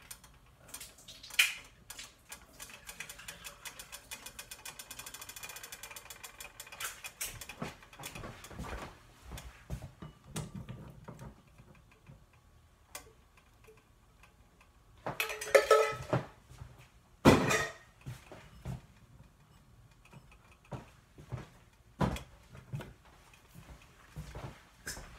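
A can of sliced carrots being opened with a hand can opener: a fast, even run of clicks for about five seconds while it is cranked. Then two loud metal clatters a little over halfway through, with light kitchen knocks around them.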